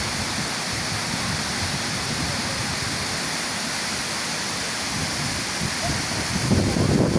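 Water falling at a partly frozen waterfall: a steady rushing hiss. Wind buffets the microphone near the end.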